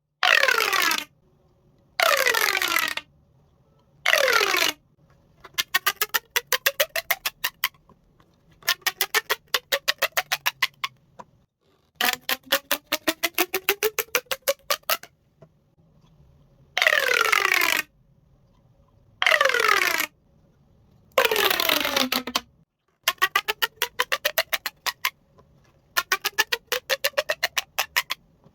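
Plastic pop tube fidget toy being stretched and squashed. Short bursts of a steeply falling, whistling tone alternate with longer runs of rapid, even clicks, about eight a second, as the ribbed segments pop one after another while the pitch rises underneath.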